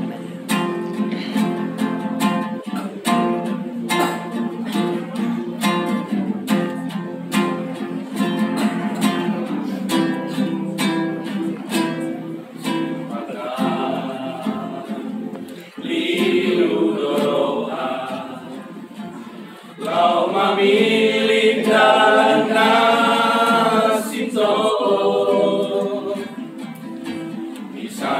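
Church choir singing a praise song to strummed guitar. The guitar plays alone at first, the voices come in about halfway through, and the choir swells to full voice later on.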